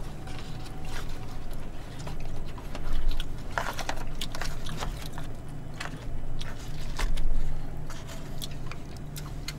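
Eating sounds: chewing, with scattered light clicks of chopsticks and spoons against plastic takeout containers, over a steady low hum.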